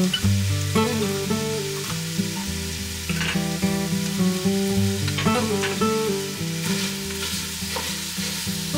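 Ground sausage sizzling in a hot stainless steel pot, with a few knife strokes on a plastic cutting board as an onion is diced, under background music.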